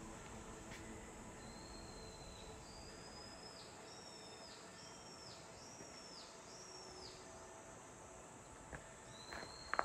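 A high whistled animal call repeats about six times, each note holding steady and then dropping in pitch at its end. It plays over a faint background hiss, with a few footsteps near the end.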